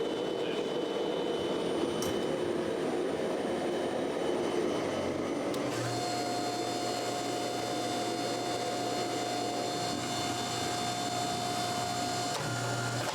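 Steady machine noise: a rushing hum that changes, about six seconds in, to a steadier whine with a held tone.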